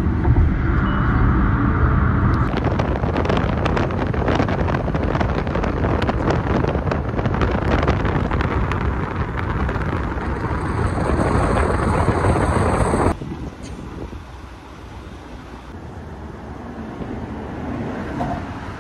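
Wind rushing and buffeting on the microphone over the steady low rumble of a moving vehicle. The noise drops suddenly to a quieter rumble about two-thirds of the way through.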